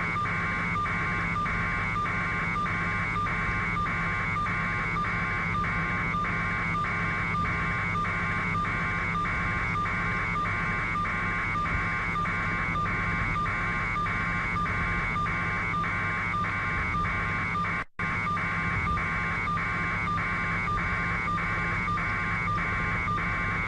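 Steady helicopter cabin hum carried over a radio or phone audio feed, with a buzz pulsing about twice a second. The feed drops out for an instant about 18 seconds in.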